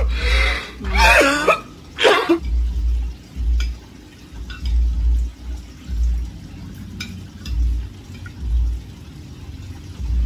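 Noodle soup slurped and sipped loudly for about the first two seconds, then quieter eating with a few light clinks of spoons and forks against bowls and plates. Low thumps repeat about once a second underneath.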